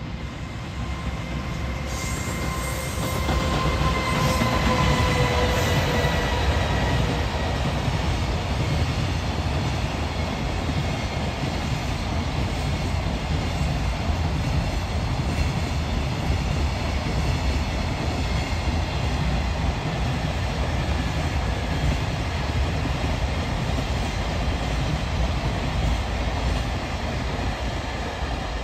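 Freight train passing: an electric locomotive goes by in the first few seconds with a whine that drops slightly in pitch, then a long string of container wagons rumbles past steadily on the rails.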